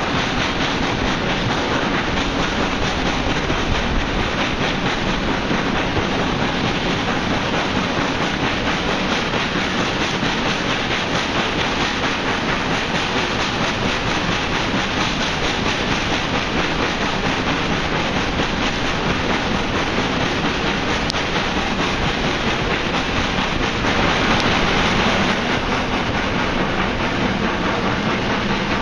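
Lambton Tank No. 29, an 0-6-2 tank steam locomotive, working hard up a steep gradient at the head of the train, its exhaust and the carriages' running noise heard steadily from an open carriage window. A louder, hissier rush comes briefly near the end.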